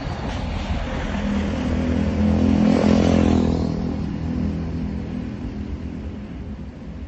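A small box truck overtakes close by. Its engine drone swells to its loudest about three seconds in, then fades as the truck pulls ahead.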